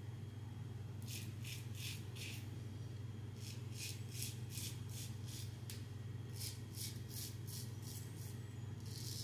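Mühle R89 closed-comb safety razor scraping through lathered stubble on the neck: quick short strokes in runs of several, with brief pauses between the runs, over a steady low hum.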